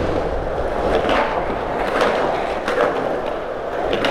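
Skateboard wheels rolling, with a few sharp clacks of the board roughly a second apart.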